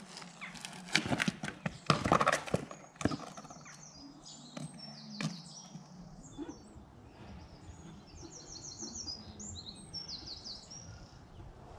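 A run of sharp knocks and clatters in the first three seconds as a unicycle falls onto tarmac and the rider's shoes hit the ground. After that, small birds chirp and trill again and again.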